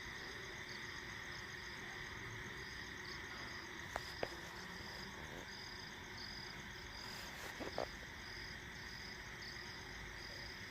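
Night chorus of frogs and insects after heavy rain: a steady high drone with a higher chirp pulsing a little more than once a second. A few short, sharp calls stand out about four seconds in and again near eight seconds.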